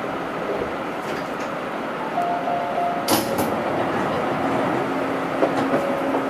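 Interior sound of an Astram Line 7000-series rubber-tyred automated guideway train: a steady rumble with faint hums. There is a short hiss about three seconds in, and a low hum sets in after about four seconds.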